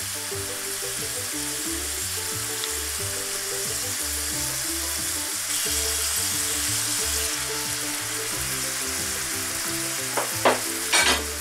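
A pan of cherry tomatoes in oil and a little water sizzling steadily over a raised gas flame; about halfway through, fresh anchovies are slid into the pan and the sizzle grows louder for a moment.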